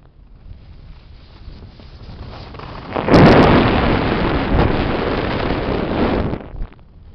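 Wind buffeting the camera microphone during a descent on snow: a low, noisy rumble that swells loud about three seconds in and dies down again after about six seconds, with a few sharp clicks as it starts.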